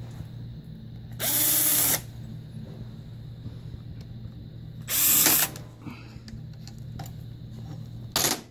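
Cordless drill/driver spinning in three short bursts, about a second in, again around five seconds, and briefly near the end, as it works at the screws holding the secondary float bowl on a carburetor.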